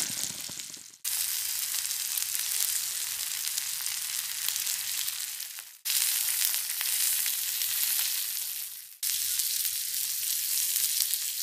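Beef pieces sizzling as they shallow-fry in hot oil in a pan, a steady high hiss. The sound drops out abruptly about a second in, near six seconds and near nine seconds, then starts again at once each time.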